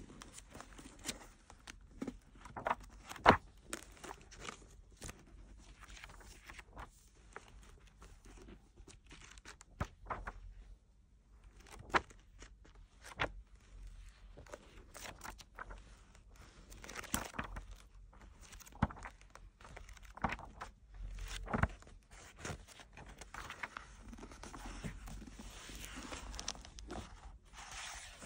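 Long acrylic fingernails tapping and scratching on the paper pages of a thick hardback book, in irregular sharp taps with the loudest about three seconds in. Paper rustles as a page is turned near the end.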